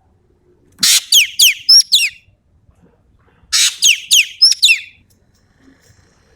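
Sumatran common green magpie (ekek keling) singing in full voice. Two phrases, each a harsh rasping note followed by a quick run of sharply falling whistles.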